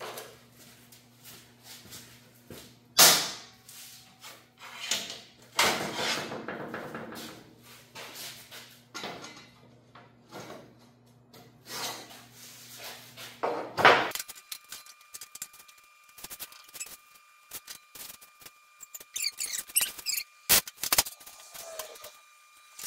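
Pieces of 1/8-inch steel plate knocked, slid and scraped on a metal welding table over a steady low hum, with one loud knock about 3 seconds in. From about 14 seconds in the audio is sped up: the handling turns into rapid clicks and clanks over a steady high whine.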